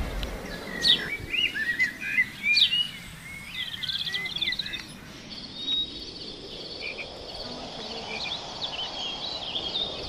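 Songbirds chirping and calling, a quick run of short rising and falling notes, busiest in the first half. From about halfway a steady high trill runs underneath the calls.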